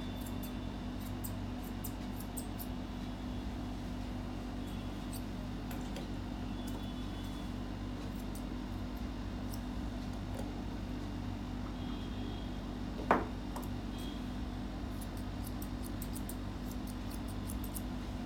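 Grooming shears snipping through a Maltese's leg fur in quick runs of small crisp clicks, over a steady low hum. One louder knock about thirteen seconds in.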